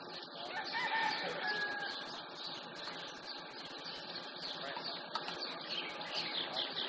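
A rooster crowing once, about a second in, over a steady high chirping of insects.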